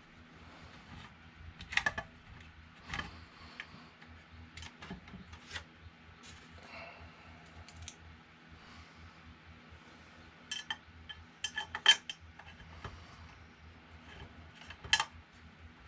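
A hex key and bolts clicking and clinking against metal as a power supply is bolted onto a 3D printer frame. The sharp clicks come scattered, with a quick run of them about 11 to 12 seconds in.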